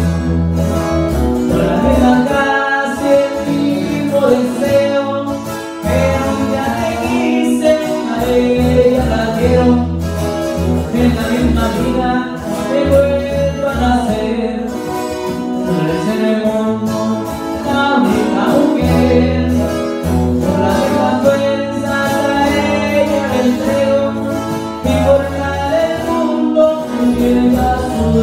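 Live acoustic trio of six-string acoustic guitar, twelve-string acoustic guitar and electric bass playing a song together, with strummed and picked guitar parts over steady bass notes.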